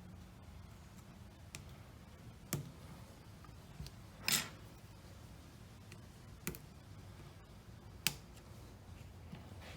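Small repair tool clicking and tapping against the open iPhone 8 Plus's internals while the battery connector is pried loose. About six separate sharp clicks, irregularly spaced, with the loudest and slightly longest about four seconds in.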